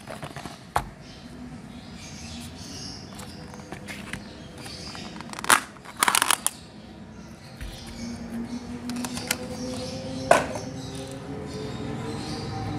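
Clear plastic food container and plastic tray being handled: a few sharp plastic knocks and taps, with a quick rattle of clicks as the container is tipped against the tray and the jelly candy blocks slide out. A faint steady hum runs underneath in the second half.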